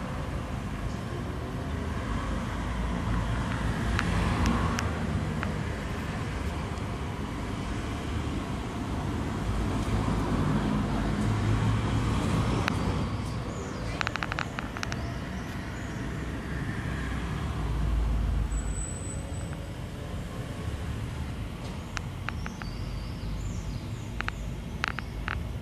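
Steady low background rumble, with a few sharp clicks about halfway through and a cluster of clicks near the end.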